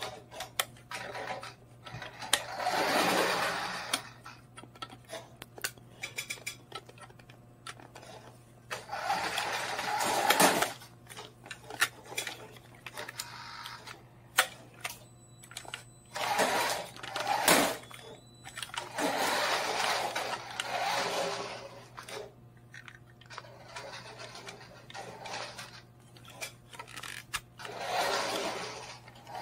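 Toy RC buggy's small electric drive motor whirring in short spurts of a second or two as it is driven forward and back, about five times, with sharp clicks and knocks in between.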